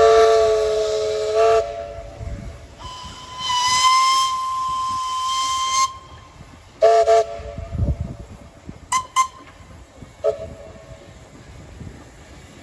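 Steam whistles: a steam locomotive's chord whistle sounds loudly for about a second and a half, then a higher single-note whistle answers for about three seconds. A few short toots follow, about seven, nine and ten seconds in.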